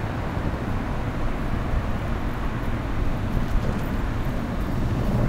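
Car driving: a steady low rumble of road and engine noise heard from inside the cabin.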